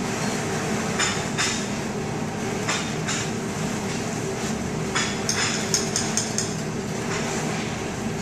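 A long slicing knife cutting through a rested grilled steak on a wooden cutting board, the blade knocking and clinking on the board with each stroke in short irregular clusters, over a steady background hum.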